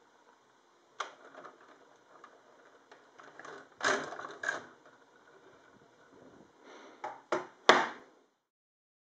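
Plastic LEGO bricks and Technic parts clicking and sliding as the magazine of a LEGO AA-12 shotgun model is worked by hand. There is a click about a second in, a cluster of rattling clicks around the middle, and three sharp clacks near the end, the last the loudest.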